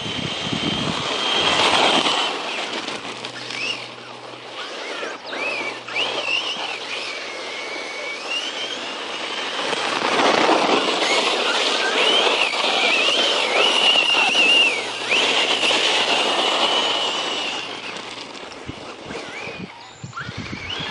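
Brushless electric motor of a 1/10-scale Circuit Thrash RC truck whining as it is driven, the high whine rising and falling with the throttle over a rush of tyre and ground noise. It is loudest in a burst about two seconds in and in a longer run through the middle.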